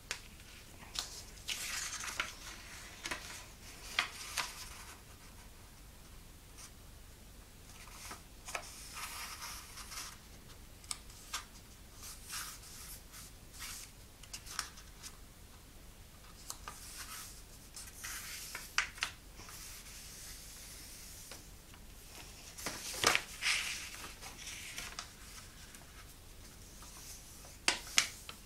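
A sheet of white paper being folded and creased by hand: rustling, sliding and scraping in short spells, with sharp clicks as the folds are pressed down, loudest a little past two-thirds of the way through.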